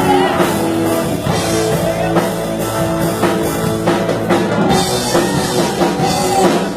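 A rock-style gospel band playing an instrumental passage on drum kit and guitar, with steady drum strokes under held chords.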